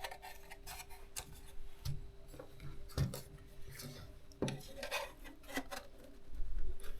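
Light handling of small teleprompter parts while a lens adapter ring is fitted: scattered clicks and taps, a few louder knocks, and light rubbing of plastic and metal pieces against each other.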